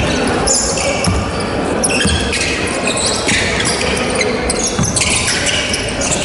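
Basketball being dribbled on a wooden gym floor, with dull thuds of the ball. Sneakers squeak sharply on the court several times as players run, in a large hall.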